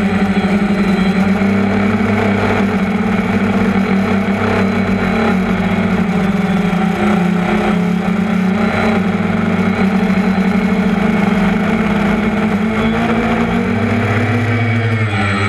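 DJI Phantom quadcopter's electric motors and propellers buzzing in flight, heard from on board. The steady hum shifts in pitch near the end as the motors change speed.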